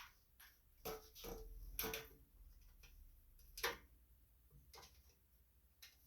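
Faint, scattered metallic clicks and clinks of small bolts and washers being handled and fitted, about half a dozen, some with a short ring; the loudest comes about three and a half seconds in.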